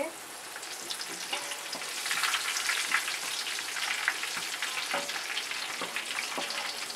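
Curry leaves sizzling in hot oil with cumin and mustard seeds, a tempering (phodni), with fine crackles throughout; the sizzle grows louder about two seconds in. A wooden spatula stirs them in the metal pot, with a few low knocks near the end.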